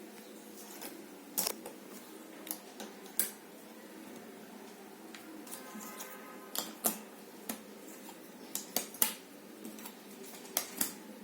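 Jigsaw puzzle pieces being handled and pressed into place: irregular sharp clicks and taps, a few in the first three seconds, then a denser run from about six seconds in.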